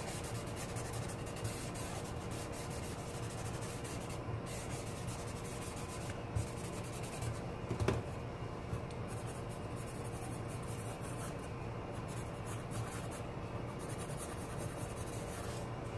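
Pencil shading on drawing paper: a steady scratchy rasp of quick back-and-forth strokes, with a couple of light taps about halfway through.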